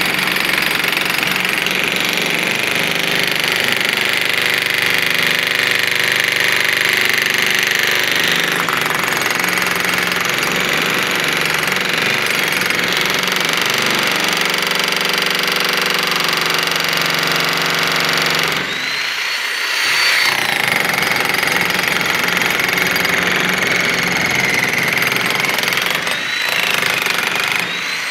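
Bosch 16 kg electric demolition hammer running steadily as its chisel breaks a concrete floor. About two-thirds through the hammering briefly lets up and the motor whine rises as it picks up again, with short dips again near the end.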